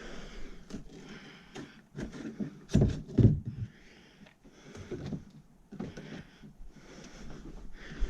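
Someone moving about a cluttered room: a couple of heavy thuds about three seconds in, with rustling, scattered clicks and breathing noise around them.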